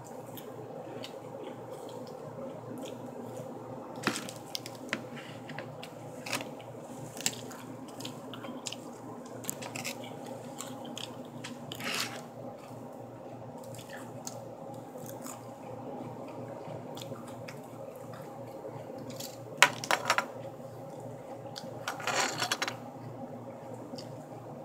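Someone eating a lettuce salad with a fork: scattered sharp clicks and wet crunches, with a loud cluster of clicks about twenty seconds in and a longer crunchy rustle shortly after, over a steady low hum.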